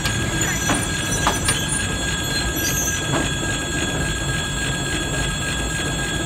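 TEM2 shunting diesel locomotive at close range, its diesel engine running with a steady low rumble and a steady high whine as it moves slowly alongside. A few sharp clicks from the running gear come about a second in and again about three seconds in.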